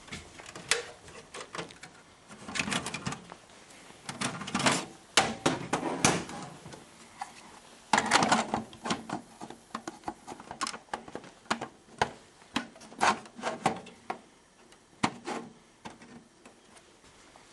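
Irregular clicks, knocks and scraping as a 3.5-inch floppy emulator drive and its plastic mounting rails are handled and slid into a PC's metal drive bay.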